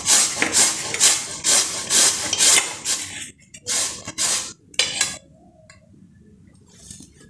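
Raw red pumpkin being grated on a round stainless-steel grater over a steel plate: rasping strokes about three a second, slowing to a few separate strokes and stopping about five seconds in.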